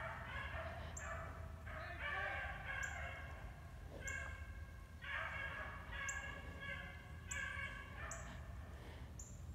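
A pack of hunting dogs baying while they run a rabbit's trail: several voices calling in overlapping bouts of about a second each, again and again.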